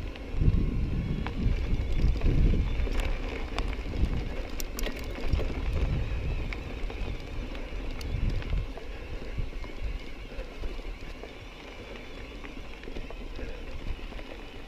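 Mountain bike on a dirt trail: wind buffeting the microphone in irregular low gusts that ease off after about ten seconds, with scattered sharp clicks and rattles from the bike.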